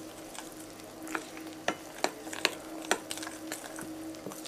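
A metal spoon stirring thick cocoa cake batter in a bowl: a wet scraping broken by sharp clicks of the spoon against the bowl, about two a second from about a second in. A steady low hum runs underneath.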